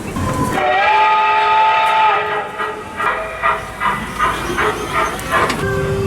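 Miniature steam train's whistle blowing one steady note for about a second and a half, followed by a level-crossing alarm ringing in quick repeated strokes, about two to three a second. A lower steady tone starts near the end.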